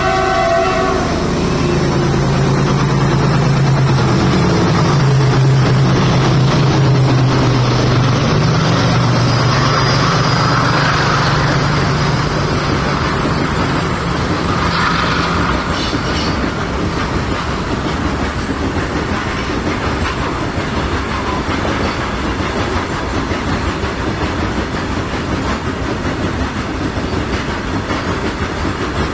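WDG-4G diesel locomotive passing at full speed, its engine's low hum dropping slightly in pitch as it goes by. It is followed by the steady rumble and clickety-clack of goods wagons rolling past.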